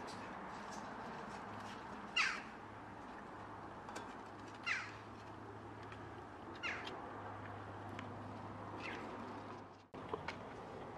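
A kitten meowing four times, about every two seconds. Each meow is a short, thin call that falls in pitch, and the last is fainter.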